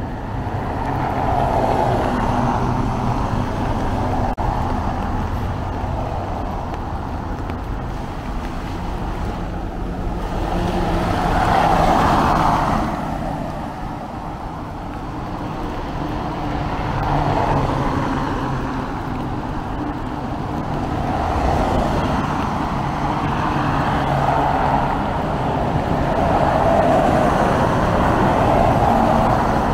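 Road traffic: vehicles passing one after another, each one swelling up and fading away, over a steady low rumble.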